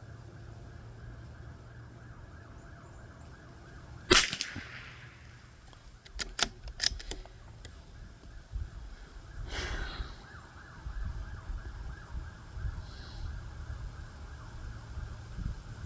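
A single shot from a Ruger RPR .22 LR rifle firing Norma Tac22 about four seconds in, then a few sharp clicks, and another shot right at the end. Wind rumbles on the microphone throughout.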